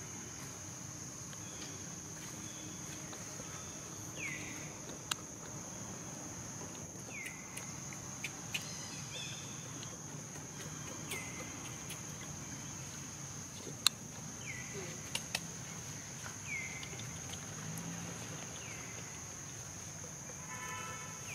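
Steady high insect drone, with short falling squeaks every three seconds or so and a few sharp clicks, the loudest about two-thirds of the way through. A brief buzzy call comes near the end.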